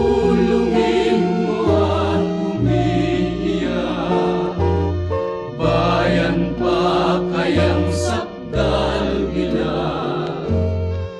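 Music with singing voices over sustained bass notes that change about once a second.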